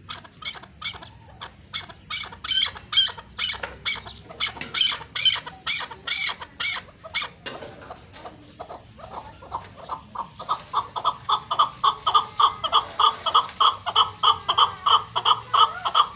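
Chukar partridge calling a long rhythmic series of short chuck notes, about three a second, that grow louder. After a brief pause, a faster run of lower-pitched chuk-chuk notes starts just past the middle and carries on to the end.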